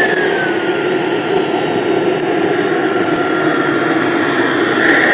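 Model jet's gas turbine running with a steady rushing noise. A thin whine glides down in pitch in the first second and then holds, and a higher whine comes in near the end.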